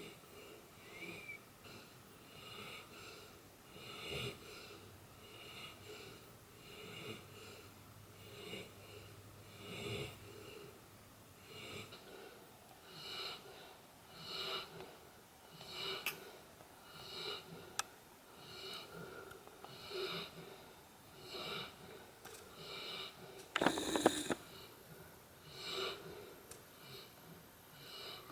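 A sleeping dog snoring, with soft noisy breaths about once a second. One louder, sharp burst comes about four seconds before the end.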